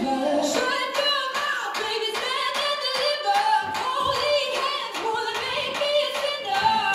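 Pop song with a woman singing in a stripped-down passage: the bass drops out and the voice carries over light percussion, with the full low end coming back right at the end.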